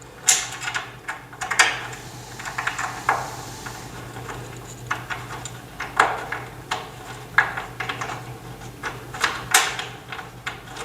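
Irregular light clicks and taps of assembly hardware, screws being fitted and turned by hand into a TV stand's metal frame.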